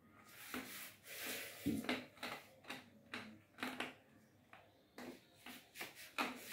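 Handling noise from a plastic tub turned over and moved in the hands: a run of irregular rubs, scrapes and light taps.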